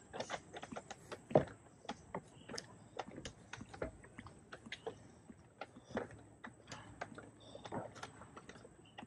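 Footsteps on a hard street while walking uphill: a quick, irregular run of sharp taps, about two to three a second, with one louder knock about a second and a half in.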